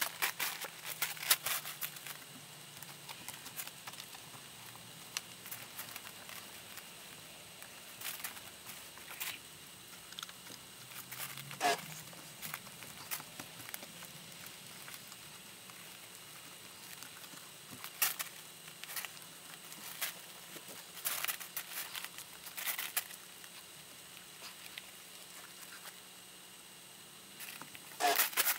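Faint scattered rustles, clicks and footsteps of someone moving about and handling things, with a brief squeak about twelve seconds in.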